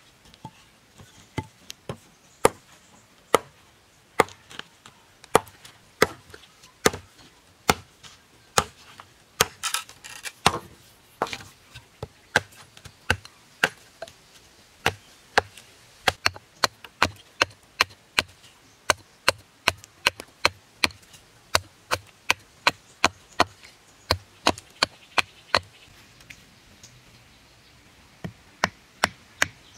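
Hatchet chopping a wooden stick against a log to sharpen it to a point: a long run of sharp wooden knocks, about one a second at first, then about two a second. Near the end a quick cluster of knocks as the pointed stake is driven into the ground with the hatchet.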